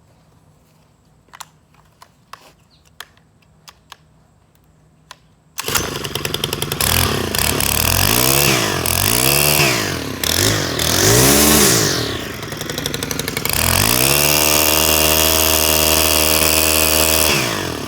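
Stihl FS90 string trimmer's 4-MIX four-stroke engine, which runs on two-stroke fuel mix. After a few light clicks it comes in abruptly about five and a half seconds in, is revved up and down several times, then held at high revs and let back down near the end.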